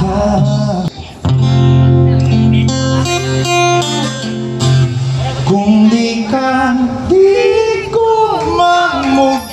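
Acoustic guitar strummed live, with a man singing over it; the guitar breaks off briefly about a second in, and the voice comes in about halfway through.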